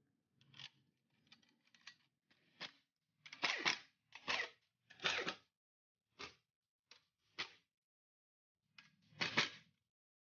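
Pneumatic impact wrench running in short bursts, hammering the threadlocked bearing cap bolts down on a truck differential carrier. There are about ten bursts, the loudest near the middle and one near the end.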